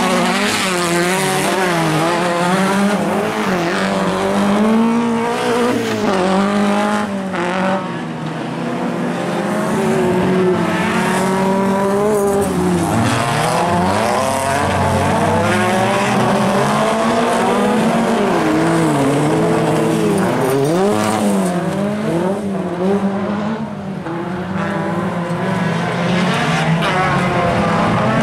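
Several small rallycross cars of the up-to-1600 cc class racing together, their engines revving up and down through gear changes with several engine notes overlapping.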